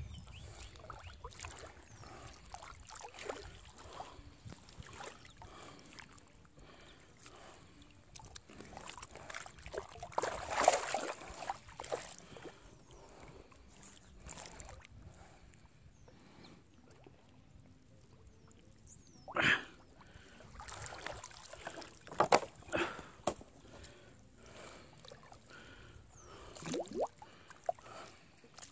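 River water sloshing and splashing irregularly, as if stirred by someone moving through it. Louder splashes come about ten seconds in, a cluster around twenty seconds, and another shortly before the end.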